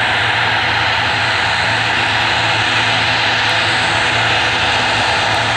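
Airbus A319 airliner's jet engines making a steady, loud noise as it rolls out along the runway just after touchdown.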